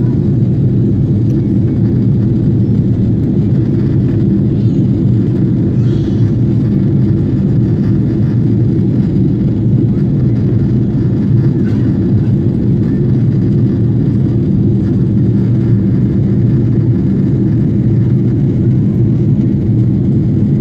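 Jet airliner cabin noise in flight, heard inside the cabin: a steady, low, even rush of engine and airflow noise with no change in pitch or level.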